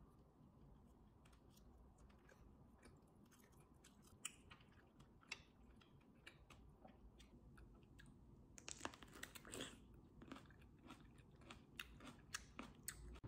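Faint close-up eating sounds: crisp crunches and chewing of toasted bread, and bites into a piece of fresh fruit, with a thick run of crunches about nine seconds in.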